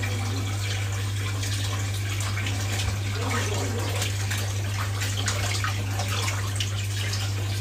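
Tap water running steadily into a kitchen sink while raw chicken is rinsed and handled under the stream, with a steady low hum underneath.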